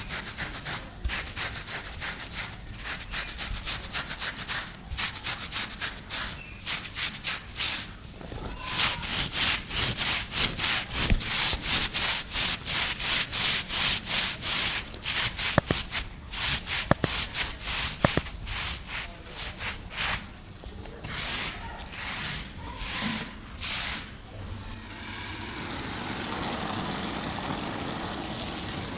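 Rug being scrubbed by hand with a stiff brush, in quick repeated strokes about two to three a second that grow louder and denser in the middle; near the end the strokes stop and a steady hiss takes over.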